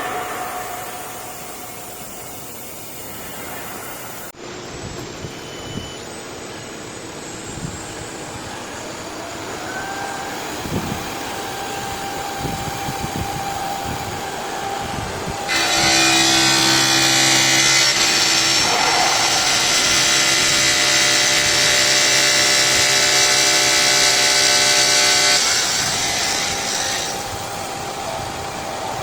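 CNC stone bridge saw running, with mechanical clatter and machine noise. About halfway through, a louder steady whine with hiss sets in and holds for about ten seconds before dropping away.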